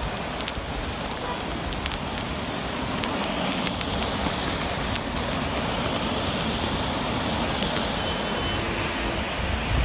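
Steady rain, with cars driving past on the wet road and their tyres hissing through the water.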